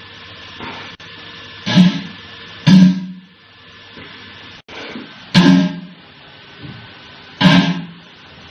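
A person burping loudly four times, each burp short and deep, with pauses of one to two and a half seconds between them.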